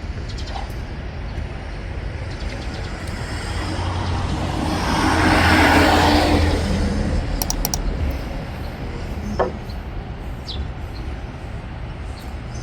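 A road vehicle passing: its noise swells over a few seconds to a peak near the middle and then fades, over a steady low rumble.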